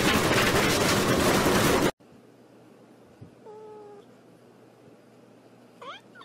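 A kitten meowing twice: a short, level meow about three and a half seconds in, then a brief rising mew near the end. Before that, a loud harsh noise stops abruptly about two seconds in.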